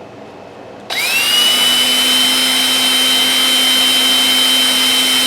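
Electric drill starting up about a second in and running steadily at speed with a high whine, boring a hole in a wooden hive top bar.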